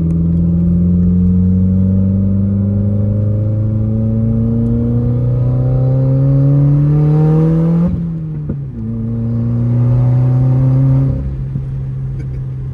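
Subaru WRX's turbocharged flat-four, heard from inside the cabin, running with its whole exhaust removed while pulling gently through the gears. Engine pitch climbs steadily for about eight seconds, drops briefly at an upshift, climbs again, then falls off to a steady lower drone as the throttle lifts.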